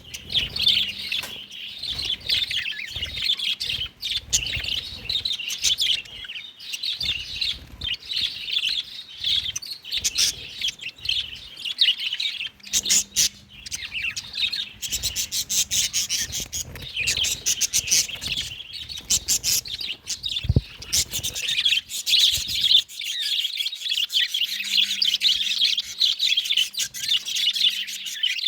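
A flock of budgerigars chirping and chattering without a break, with a run of sharp, quick notes about halfway through.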